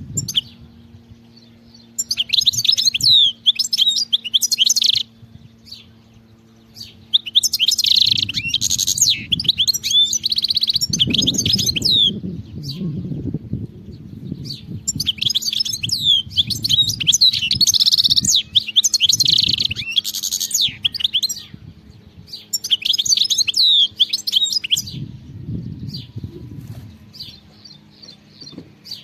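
European goldfinch singing: four long bursts of rapid twittering notes with short pauses between them, including a buzzy trill about ten seconds in.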